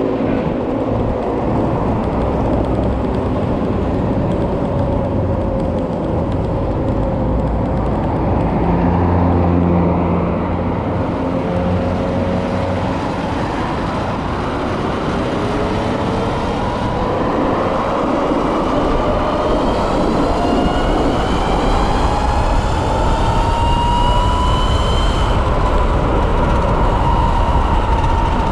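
Electric-converted Kawasaki KLX motorcycle accelerating: the electric motor and controller whine rises in pitch through the second half as speed climbs, then levels off near the end, over a steady rush of wind and road noise.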